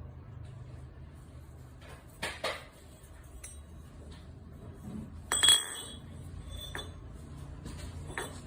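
A few sharp clinks of hard objects knocking together, the loudest about halfway through with a brief metallic ring, over a low steady hum.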